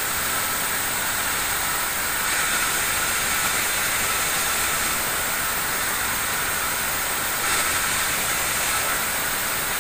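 Band sawmill running and sawing a plank of mango wood: a steady, unbroken hissing noise, strongest in the high range.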